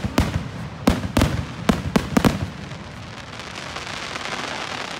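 Aerial fireworks going off overhead: a quick series of sharp bangs in the first two and a half seconds, then a steady hiss of crackling sparks that swells toward the end.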